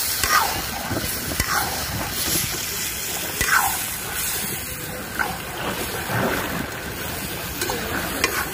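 Hilsa fish curry sizzling in a pot over a cooking fire as it is stirred: a steady hiss with a few light knocks.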